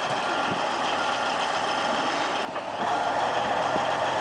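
Komatsu D355 crawler bulldozer working, a steady heavy-machinery noise of engine and tracks. The sound changes abruptly about halfway through.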